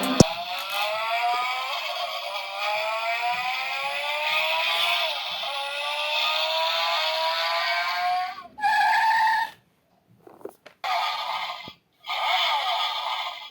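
Remote-control toy Lamborghini car running: a whine that rises in pitch again and again, followed about eight seconds in by a short steady tone. After that come stop-start bursts of scraping and rattling noise.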